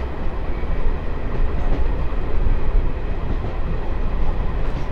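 Diesel-electric multiple unit (DEMU) train in motion, heard from on board: a steady, loud rumble of wheels running on the rails.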